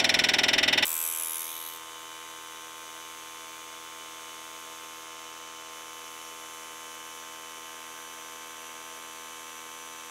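High-pressure scuba air compressor running loudly, pumping air into a truck tyre. About a second in it cuts off abruptly and fades away. What is left is a quieter, steady machine hum with a whine in it.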